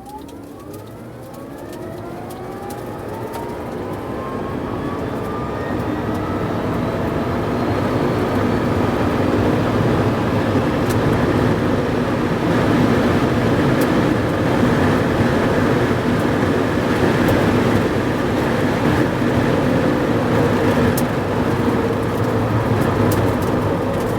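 Rimac Nevera electric hypercar accelerating hard in reverse: the whine of its electric drivetrain rises in pitch over the first several seconds and then levels off, under growing tyre and wind noise that stays steady once it is up to speed.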